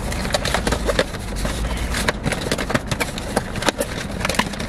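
Cardboard fast-food sandwich box being handled and opened: a run of irregular taps, crinkles and scrapes of paperboard.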